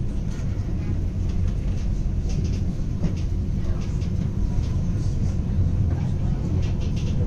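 Tram running on its rails: a steady low rumble heard from inside the car.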